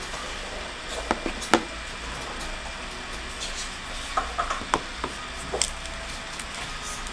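Brittle shells of dried tamarind pods cracking as they are broken and peeled by hand: a few sharp snaps about a second in, then a cluster of crackles from about four to nearly six seconds in.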